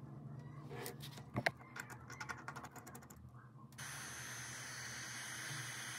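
Small light clicks and taps of tools and phone parts being handled during a phone repair, one sharper tap about a second and a half in; a steady hiss starts abruptly near four seconds in.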